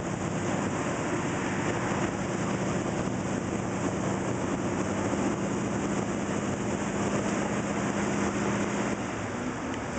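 Steady noise of slow stop-and-go traffic with idling car engines, including a steady low engine hum that drops away about nine seconds in.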